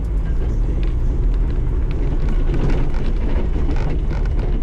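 Side-by-side UTV driving along a dirt trail: a steady engine and drivetrain drone, with occasional light knocks and ticks over it.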